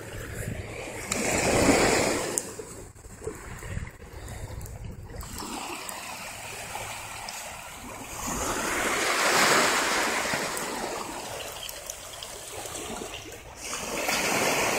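Small waves breaking and washing up a bay shore, the surf noise swelling and fading three times.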